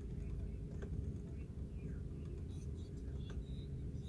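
Steady low hum in a Honda Civic's cabin, with a couple of faint clicks as the climate control's temperature setting is changed.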